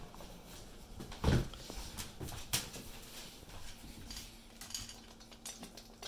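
Footsteps and light handling knocks while a plate of dry kibble is carried, with one dull thump about a second in and a sharp click about two and a half seconds in.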